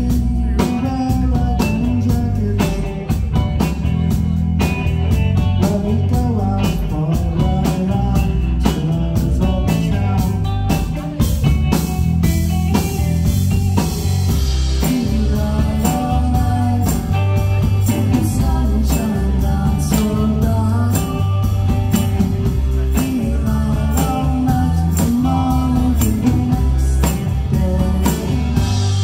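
Live rock band playing: electric guitar, bass guitar and drum kit with a steady beat, and singing over them.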